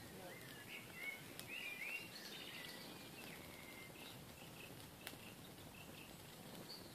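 Birds chirping and singing, busiest in the first few seconds, over faint steady outdoor noise, with a single sharp click about five seconds in.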